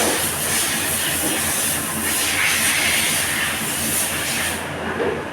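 CNC machine running in a factory: a steady high hiss over a low hum, the hiss cutting off suddenly about four and a half seconds in.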